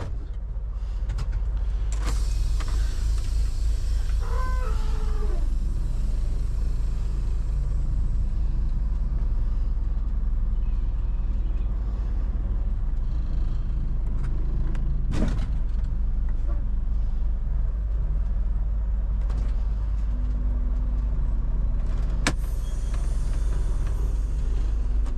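Semi-truck engine running steadily at low revs as the tractor-trailer is backed up to the loading dock, with a short falling squeal about four seconds in and a couple of sharp clicks later.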